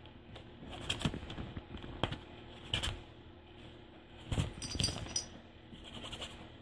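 Light, irregular scratching, rustling and clicking on nylon fabric and mesh as a Persian kitten paws and shifts about inside a pop-up play tent. The clicks come in an uneven scatter, busiest about four to five seconds in.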